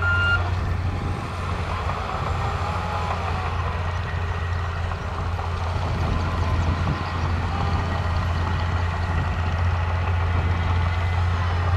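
Diesel engines of a Shantui crawler bulldozer and a loaded dump truck running steadily, a low drone with a wavering whine over it. A last reversing beep sounds right at the start.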